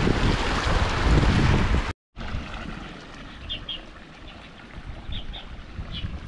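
Wind buffeting the microphone as a loud rushing noise, cut off abruptly about two seconds in. After that, a quieter wind rumble with a few short, high bird chirps, mostly in pairs.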